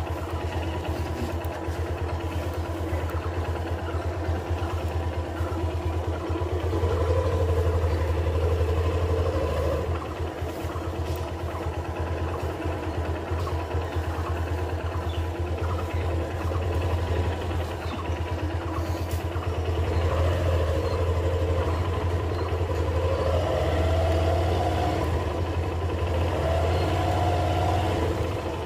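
Hero motorcycle engine running at low riding speed. The revs rise and fall several times, most strongly about seven to ten seconds in and again toward the end.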